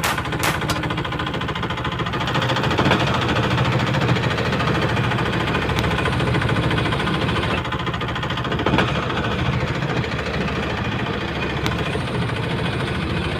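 Small boat engine running steadily, with a fast, even chugging beat and no change in speed.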